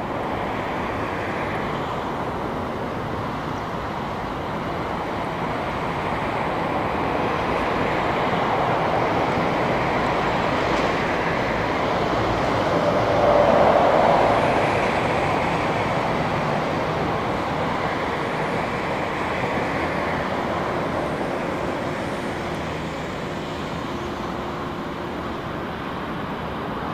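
Jet engines of a taxiing Airbus A330-900 (Rolls-Royce Trent 7000) running at low thrust: a steady rushing noise that swells to its loudest about halfway through, then slowly eases.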